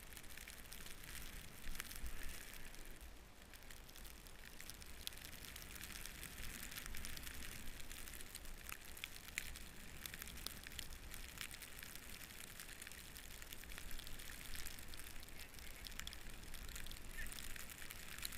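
Snowboard riding through deep fresh powder: a steady soft hiss of snow, with light crackles and a low rumble underneath.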